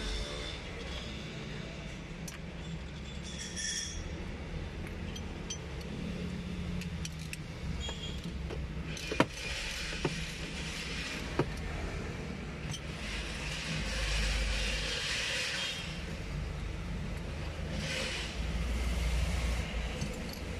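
Steady low rumble of a vehicle engine, with three sharp metallic clinks about a second apart midway and several bursts of hiss lasting two or three seconds each.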